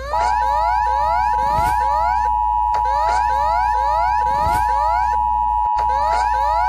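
Emergency alert system alarm tone: a steady high electronic tone held without a break over rapidly repeating rising sweeps, about two a second, with a low hum beneath.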